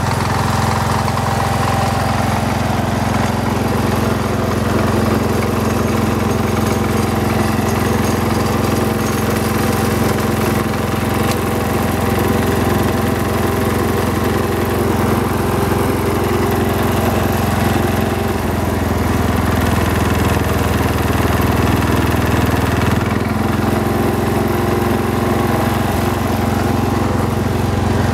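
A 1978 Wheel Horse C-141 garden tractor's Kohler K321 14 hp single-cylinder engine running steadily, with a slight change in its note about two-thirds of the way through.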